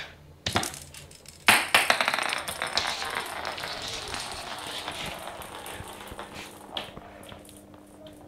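A small plastic ball knocking on a laminate floor, twice in the first second and a half, then rolling across it with a rattling patter that fades over a few seconds.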